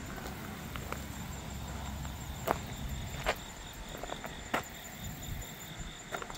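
Footsteps over a rocky creek bed, with a few sharp knocks of stones underfoot, three of them louder. Insects keep up a steady high pulsing drone throughout.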